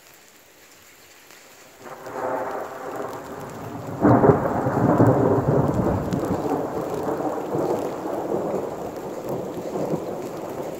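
Thunder over steady rain. A rumble starts about two seconds in and breaks into a loud crack about four seconds in, then rolls on, slowly fading.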